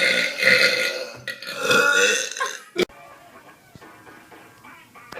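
A person belching, a long drawn-out burp in the first half that breaks off, followed by a single sharp click just under three seconds in.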